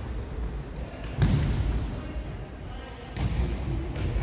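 Two sharp thuds of a futsal ball being struck, about a second in and again about three seconds in, echoing in a large sports hall.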